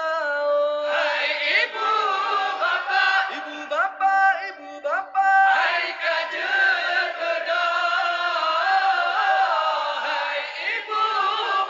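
A group of young men chanting a sahur wake-up song in unison into a microphone: a Ramadan call rousing people before dawn for the pre-dawn meal. A lead voice is joined by the full group in long, melodic held lines.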